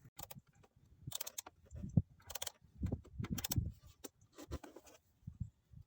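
Hand tools clinking and scraping against a screw and the plastic trim, in a few short separate bursts.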